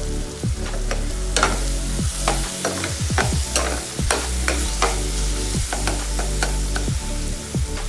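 Food frying in oil in a pan, with a spoon or spatula stirring and scraping against the pan in short irregular strokes over the steady sizzle.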